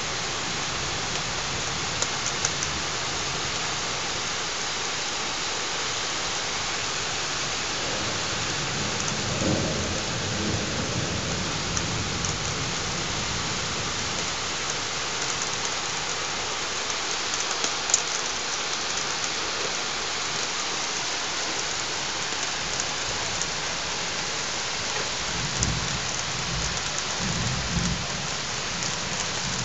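Steady rain hissing during a thunderstorm, with scattered drops ticking close by. Thunder rumbles low twice, about a third of the way in and again near the end.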